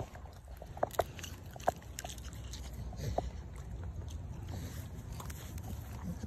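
Young cane corso x presa canario dog gnawing a wooden stick: sharp cracks and clicks of teeth on wood, the loudest about a second in and again near two seconds, over a steady low rumble.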